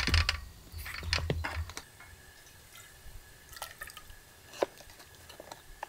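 Cooking sounds from a pot: utensils clinking and tapping against it, with liquid sloshing and dripping. A low rumble underneath stops about two seconds in, after which only a few scattered taps remain.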